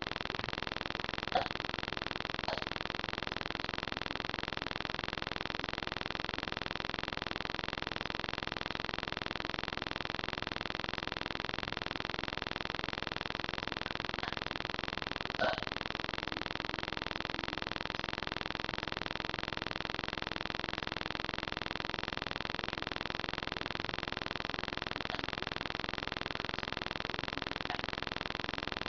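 Steady hiss of a webcam microphone's noise floor, with a few short, faint sounds about a second in, near the middle and near the end.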